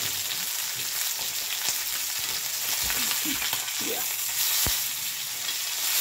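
Steaks sizzling steadily in a well-preheated cast iron skillet. Metal tongs knock and scrape against the pan a few times midway as the steaks are turned over.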